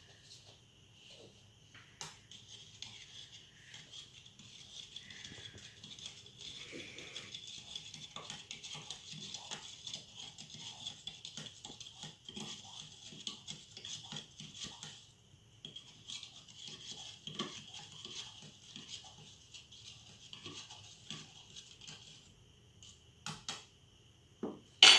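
Spoon stirring baking soda into water in a small container: a fast, steady scraping and clinking that breaks off briefly about halfway and stops a few seconds before the end. A few knocks and one sharp clack follow near the end.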